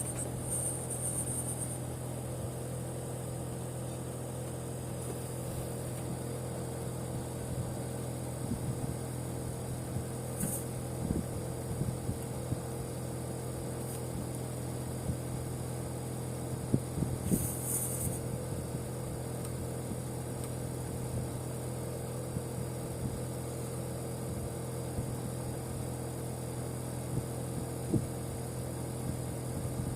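A neighbouring house's air-conditioner outdoor unit running, its compressor giving a steady low hum with a fainter higher tone over it, heard as an abnormal, noisy sound. There are two brief high hisses, about ten seconds in and again near eighteen seconds.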